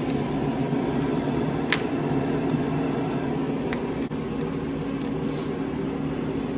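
Steady mechanical hum, with two sharp clicks about two seconds apart.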